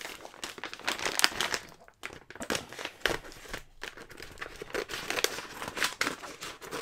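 Kraft-paper mailer crinkling and rustling as it is handled and opened: a run of irregular crackles.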